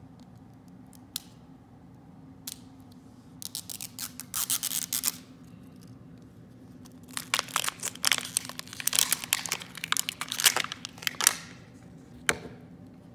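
Plastic wrapping of an L.O.L. Surprise ball being torn and peeled off by hand, crinkling. A few clicks come first, then a short spell of crinkling about four seconds in and a longer stretch of tearing and crinkling from about seven to eleven seconds.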